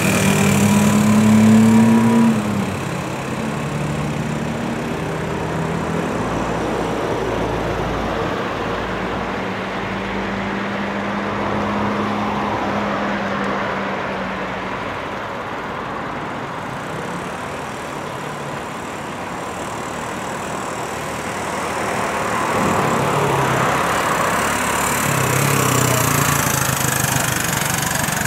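Motorcycle engine running as it is ridden, its pitch shifting and its loudness swelling and fading.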